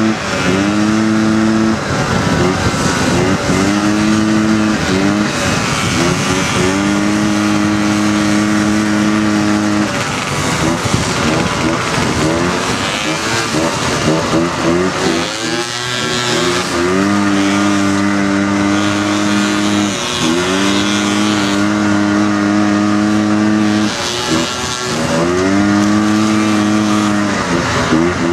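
Honda dune buggy's single-cylinder four-stroke engine heard from on board, running hard at steady high revs. The revs drop and climb back several times as the throttle is lifted and reopened, over constant wind and tyre noise.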